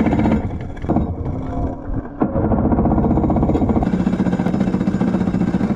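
Electric starter cranking a Wet Bike's engine, a fast even churning rhythm that breaks off and starts again about two seconds in, the engine failing to catch; the starter is close to dying.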